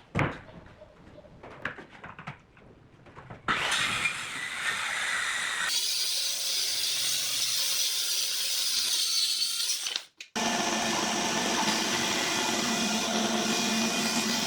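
A few light knocks and taps, then about three and a half seconds in a power tool starts working wood and runs loud and steady. It breaks off for a moment near ten seconds, then a steady power-tool run with a humming motor tone follows.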